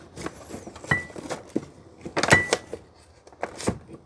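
Metal-on-metal clicks and clinks of a piston puller being worked against a Corvette disc-brake caliper while hooking it under a caliper piston, with two short ringing metallic clinks, the louder a little past two seconds in.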